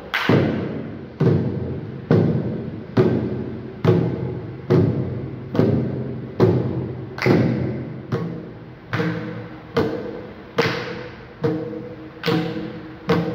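Two mridangams played together: a slow, even beat of sharp strokes, a little over one a second, each ringing out with a pitched tone as it dies away.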